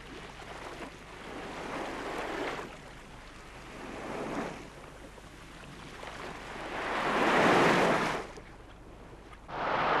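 Small sea waves washing onto a sandy beach, coming in several swells that rise and fall, the loudest about seven seconds in.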